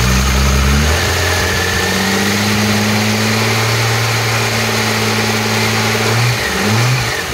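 Alfa Romeo Milano's V6 engine idling while warming up after a cold start. It settles to a steady idle about a second in and is briefly revved near the end.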